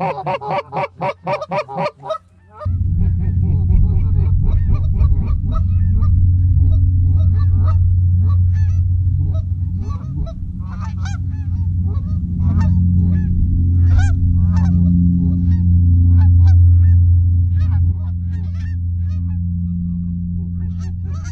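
Geese honking as a flock comes in, many calls overlapping, with a rapid string of calls in the first two and a half seconds. From about two and a half seconds in, a loud steady low rumble sits under the honking.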